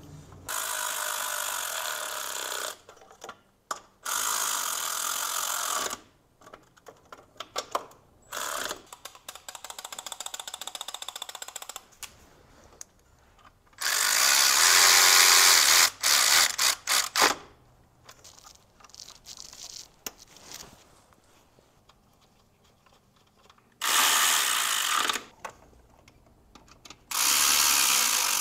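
Snap-on cordless ratchet running in repeated bursts of one to three seconds, spinning fasteners, with short blips of the trigger in between.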